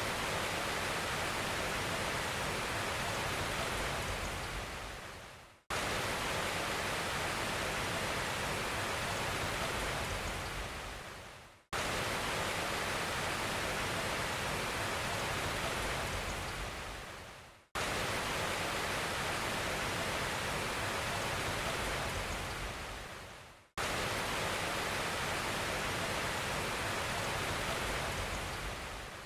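Even hiss like rushing water or rain, playing in a loop: each pass runs about six seconds, fades away to silence and starts again abruptly, five times over.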